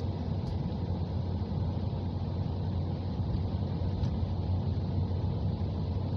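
Steady low rumble of a car driving along a highway, engine and tyre noise as heard inside the cabin.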